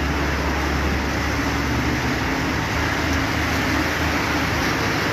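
Steady rushing of floodwater across a road, mixed with the engines of light trucks wading through it; a low engine hum fades about a second in.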